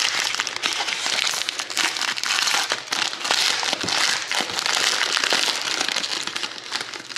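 Foil trading-card pack wrapper being torn open and crumpled by hand: dense, continuous crinkling and crackling that starts abruptly and dies away at the end.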